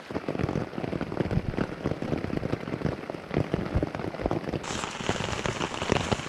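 Rain falling on a nylon poncho shelter overhead, heard from underneath it: a dense, irregular patter of drop impacts on the fabric, turning brighter and hissier about three-quarters of the way through.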